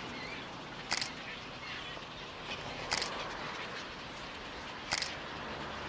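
A camera shutter clicking three times, evenly about every two seconds, over a steady outdoor hiss.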